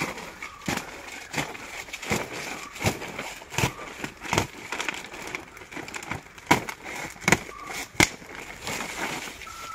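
Machete blade slicing through a blue plastic tarpaulin held taut, in a run of short, sharp rips and crackles, more than one a second, a few louder strokes near the end.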